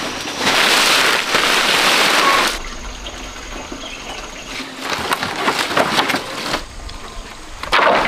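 Loud rustling and crackling of a heap of cut palm-leaf fronds being gathered by hand, which stops abruptly about two and a half seconds in; after that, quieter outdoor ambience with scattered light knocks.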